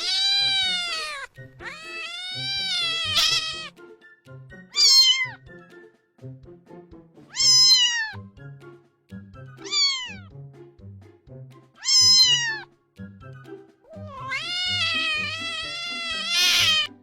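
A cat meowing seven times, some calls long and drawn out and others short and sliding down in pitch, with the longest at the start and near the end. Soft background music plays under the meows.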